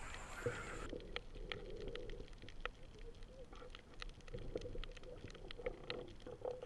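Muffled underwater sound picked up by a submerged camera: a low, even hiss with faint, scattered clicks and crackles. A higher hiss drops away about a second in.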